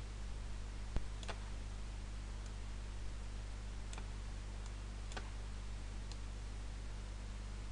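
A handful of faint, scattered computer mouse clicks over a steady low hum.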